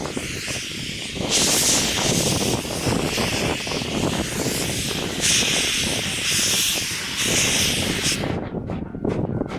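Steam locomotive letting off loud hissing steam in long bursts over a low rumble; the hiss cuts off about eight seconds in, leaving the rumble and a quick series of regular knocks.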